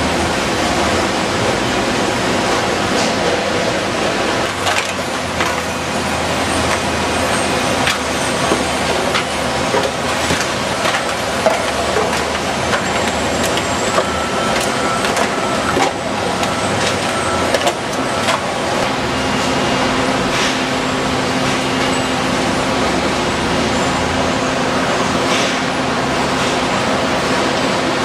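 Steady machinery din of a recycling sorting plant, with conveyors running and scattered sharp clicks and clatter from the items they carry. A steady low hum joins about two-thirds of the way through.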